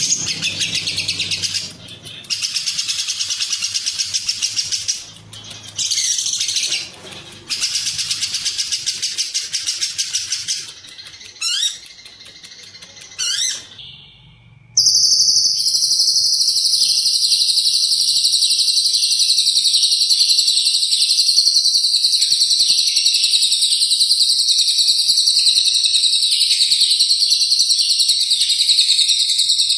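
Lovebird singing in fast, high-pitched chattering trills: several bursts of a few seconds each with short gaps, two quick upward-sweeping notes, then one long unbroken trill from about halfway through to the end. This is the long 'ngekek' trill valued in lovebird song contests.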